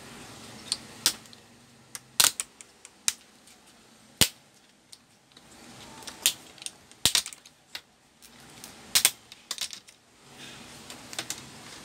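Plastic laptop screen bezel clicking and snapping at irregular moments as its edge clips are pressed and worked around the display panel, about a dozen sharp clicks, some in quick pairs.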